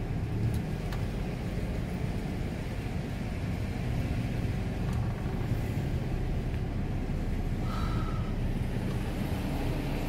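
Steady low rumble of a 1998 Dodge 2500 pickup truck driving along, heard from inside the cab: engine and tyre noise on the road. A short high tone sounds once about eight seconds in.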